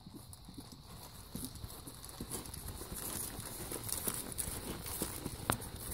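A saddled horse walking on grass, its hoof falls landing in an uneven patter and getting louder as it comes close. A single sharp click about five and a half seconds in.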